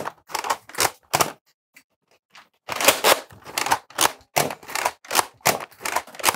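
Plastic mechanism of a Nerf Elite 2.0 Flip 32 blaster being worked over and over: a quick run of clacking, scraping strokes, about two or three a second, with a short pause about a second and a half in.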